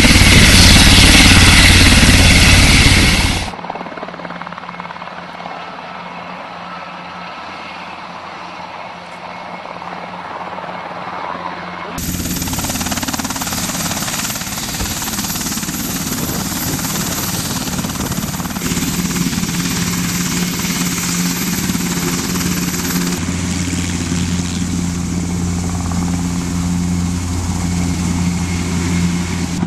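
KUH-1 Surion twin-turboshaft helicopter running with its rotors turning: a steady low hum with a high turbine whine. A loud rushing noise fills the first few seconds and cuts off suddenly. The sound grows louder about twelve seconds in and deepens again past the twenty-second mark as the helicopter lifts into a hover.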